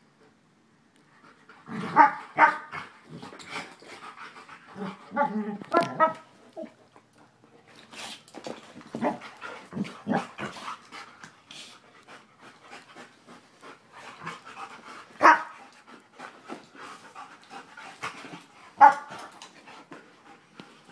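Two dogs play-fighting at close range: growls and panting broken by several sharp barks, the loudest about two seconds in, near the middle and near the end.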